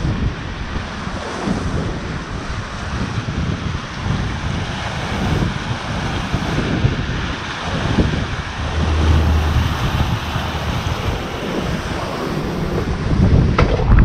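Water rushing and breaking in the wake of a sailing yacht moving fast through ocean swell, with wind buffeting the microphone in gusts, strongest about nine seconds in.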